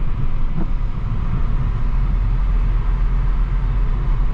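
Steady cabin noise of a Ford New Fiesta 1.6 petrol hatchback driving: low engine and tyre rumble heard from inside the car.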